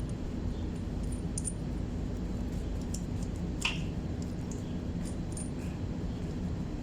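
A few light metallic clicks and clinks from tools on engine parts, the sharpest about three and a half seconds in, over a steady low background rumble.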